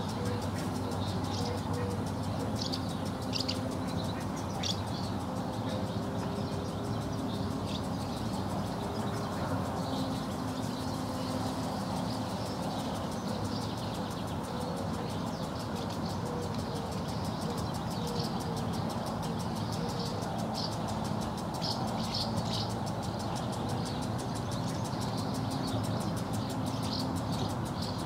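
Swallows and house martins giving short high twittering chirps, in scattered clusters, over a steady background hum and hiss of distant traffic.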